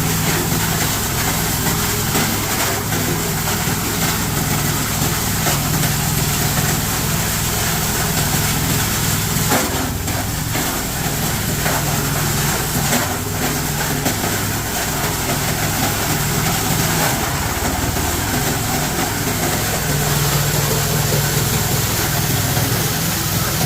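Plastic crusher running under load, grinding chunks of plastic drum and chair: a steady machine drone with irregular cracking and knocking as the plastic is chopped.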